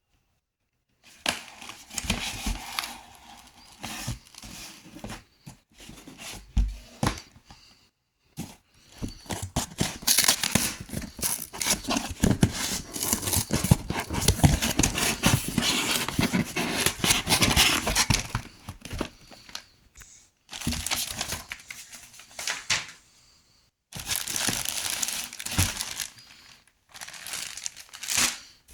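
Packaging crinkling and rustling, with tearing, as a football shirt is unpacked by hand. The handling comes in bursts with a few brief silent pauses.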